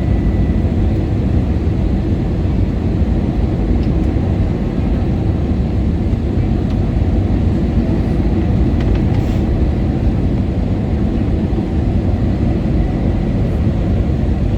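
Steady low rumble of engines and rushing air inside the cabin of an Airbus A321ceo airliner in flight.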